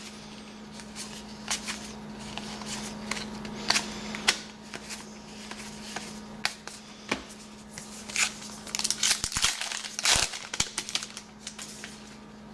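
Trading card pack wrappers being torn open and crinkled, with cards slid and flicked through the hands: irregular crackles and snaps, the loudest about four seconds in and again about ten seconds in. A steady low hum sits underneath.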